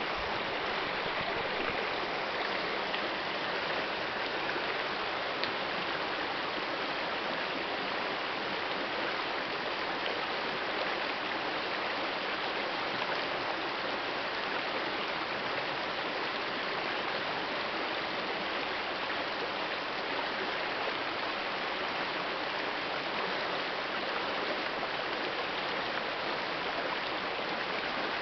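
Shallow, rocky forest river rushing and splashing around boulders: a steady, unbroken wash of water.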